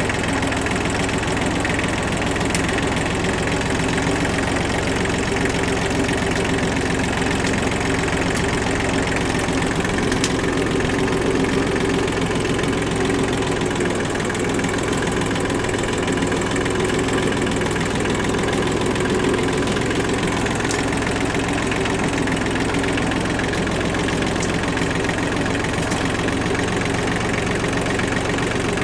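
Kubota tractor's diesel engine running at a steady speed, with a few faint sharp ticks here and there.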